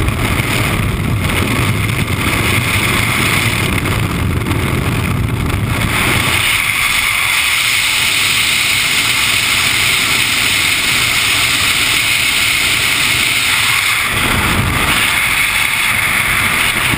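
Freefall wind rushing over a GoPro camera, a loud steady rush. About six and a half seconds in the low rumble drops away, leaving a brighter, higher hiss.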